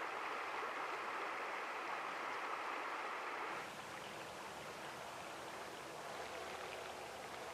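River water flowing, a steady rushing that drops a little in level about halfway through.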